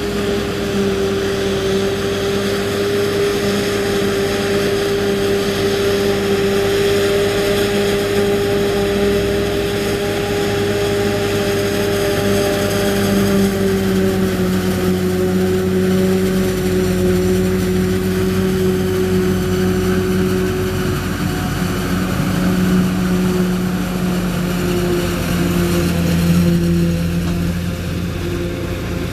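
Claas Jaguar 850 self-propelled forage harvester chopping maize and blowing it into a trailer: its engine and chopping gear run steadily with a constant whine over a low drone, mixed with the Case IH CS 150 tractor's engine pulling the trailer alongside.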